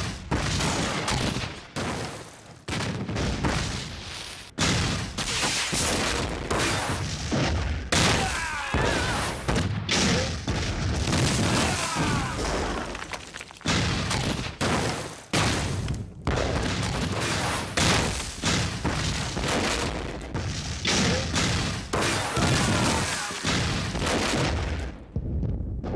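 Battle sound effects of cannon fire and explosions going off one after another, blast after blast with only short gaps between.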